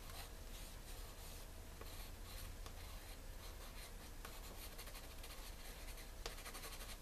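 A Spectrum Noir Aquablend watercolor pencil scratching faintly on sketchbook paper in many short strokes, outlining small pebbles.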